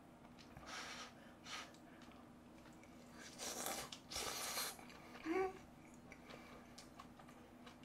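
A person slurping hot, spicy malatang broth from a spoon and blowing out hissing breaths against the heat. The two loudest breaths come about three and a half and four and a half seconds in, followed by a short vocal sound.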